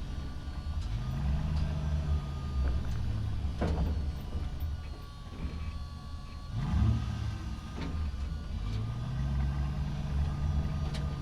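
Truck driving through a parking structure: a low engine rumble whose pitch rises and falls twice as it speeds up and slows, with several short sharp knocks or squeaks that ring on in the enclosed space.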